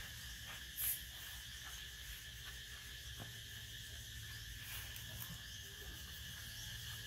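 Steady insect chorus, crickets or cicadas droning at a constant pitch, over a faint low hum. A short, sharp high hiss comes about a second in, with a few faint ticks later.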